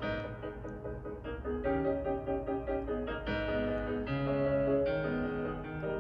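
Solo piano music playing from a laptop's speakers, a stream of notes that grows fuller about halfway through.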